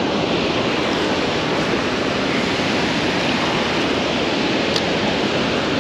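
Water rushing through a dam spillway: a loud, steady rush of falling water.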